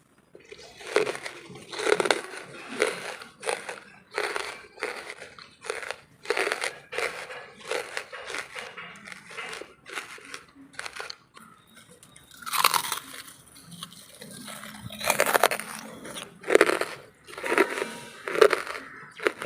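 Close-miked chewing of hard lumps of wood charcoal, with brittle crunches about two a second. The loudest bites come in the second half, a little over halfway in and again near the end.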